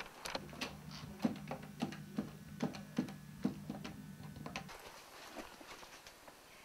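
A front door shutting with a sharp click, then a string of light, irregular clicks from a landline telephone's buttons being pressed as a number is dialled, over a low steady hum that stops about four and a half seconds in.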